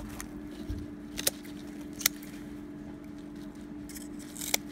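Shears snipping through hollow courgette leaf stalks during pruning: four short sharp snips, spread unevenly, over a steady low hum.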